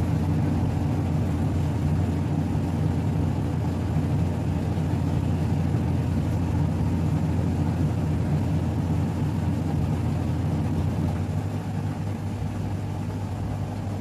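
Mademsa top-loading washing machine late in its spin cycle: a steady low hum from the motor and spinning drum, which shifts and drops a little in level about eleven seconds in.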